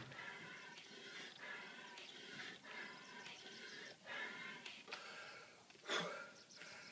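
Rapid, forced breathing in and out through a Spiro Tiger respiratory trainer's mouthpiece and 5-litre rebreathing bag, one stroke about every half second. About six seconds in comes a louder breath out as the mouthpiece comes away from the mouth.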